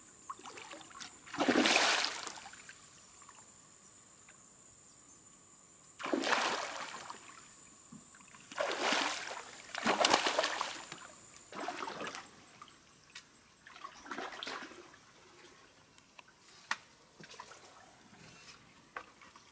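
A hooked fish thrashing at the surface, throwing up water in about six separate splashes of a second or less, the loudest ones about two seconds in and about ten seconds in.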